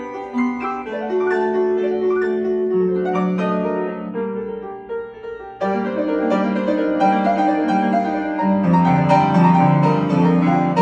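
Piano music: struck notes and chords ringing and decaying one after another, thinning out briefly near the middle, then fuller with lower notes joining from about eight and a half seconds in.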